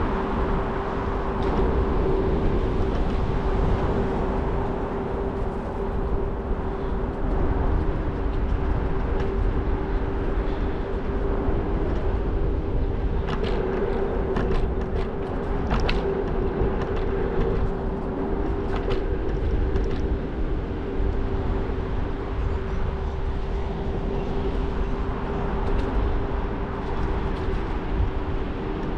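A scooter riding along a path: a low rumble with a steady whine that holds one pitch throughout, and a few sharp rattling clicks about halfway through.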